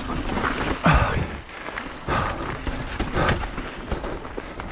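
Downhill mountain bike riding fast down a wet dirt jump trail: rough tyre and trail noise mixed with wind on the mic, surging about once a second.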